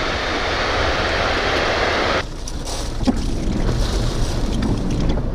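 Strong wind near a tornado rushing loudly, heard from a stopped vehicle; about two seconds in the high hiss cuts off suddenly, leaving a low, steady rumble.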